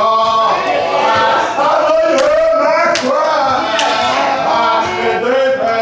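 A man's prayer chanted in a sung, gliding style, with other voices singing along. There are a few sharp, brief sounds about two, three and four seconds in.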